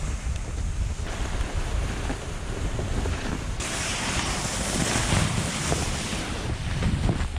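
Wind rushing over the microphone together with the hiss of dogsled runners gliding over snow, a steady noise that grows louder and brighter about three and a half seconds in.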